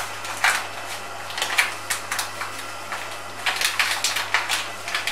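Granular jelly powder being shaken from a plastic packet onto a plate: a string of irregular soft rustles and ticks as the packet crinkles and the grains fall.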